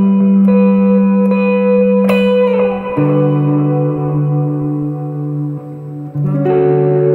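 Electric guitar played through a Valeton GP200 multi-effects patch with thick ambient reverb and a light Tube Screamer-style overdrive (gain at zero), giving it a slightly dirty edge. Long ringing chords change about three seconds in and again about six seconds in.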